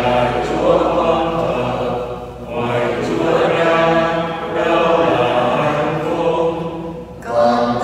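Slow sacred choral chant: voices holding long notes in phrases, with brief breaks between phrases about two and a half seconds in and again near the end.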